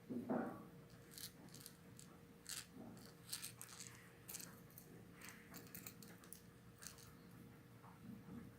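Handling noise: a scatter of light clicks and rattles from small hard objects, with a louder knock just after the start.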